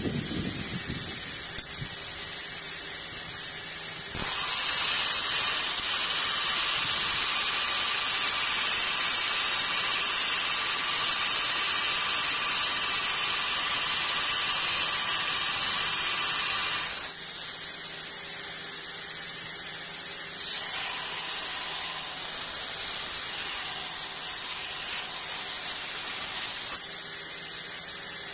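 Belt grinder running a 40-grit ceramic belt with a steady hiss. About four seconds in, a 316 stainless steel bar is pressed against the belt and ground with a loud high-pitched hiss for about thirteen seconds. The bar is then lifted off, and lighter contact follows for a few seconds.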